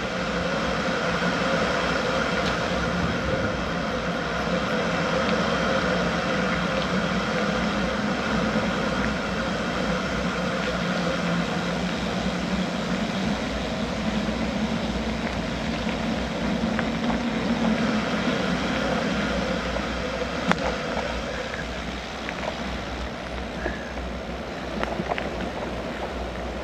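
Car engine and tyre noise, a steady hum and rumble as the car drives along a sealed road, with a few small knocks.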